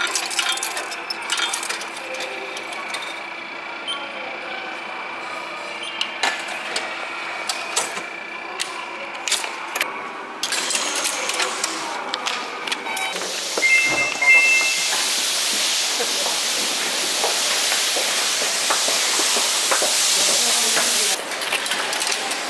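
Station sounds: clicks as a coin is fed into a ticket machine, scattered footsteps and clatter, and a short two-tone beep about 14 s in, typical of a ticket gate. A loud, steady hiss then runs for about seven seconds and drops off shortly before the end.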